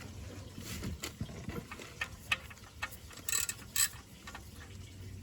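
Scattered clicks and knocks as the screw-on oil filter housing cap of a Toyota 2AR-FE engine is worked loose, with the loudest clicks a little past the middle.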